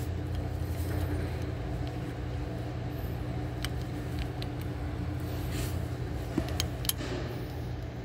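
A steady low mechanical hum, like an engine running, with a few scattered light metallic clicks as a three-cylinder Perkins diesel is turned over by hand to bring the camshaft gear to its timing position for number-one top dead centre.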